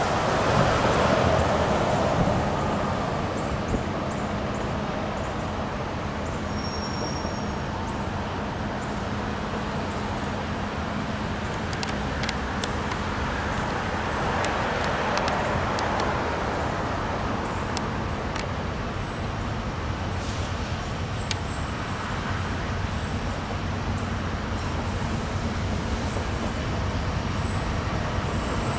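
Steady road traffic noise, with vehicles swelling past about a second in and again around the middle.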